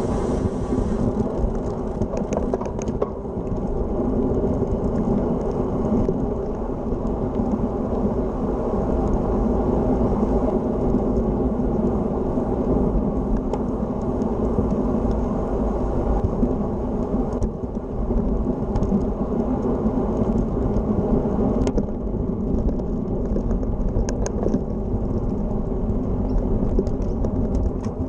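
Steady wind rumble on the microphone mixed with the noise of a Polygon Stratos S7 road bike rolling along an asphalt path, with a few light clicks and rattles scattered through it.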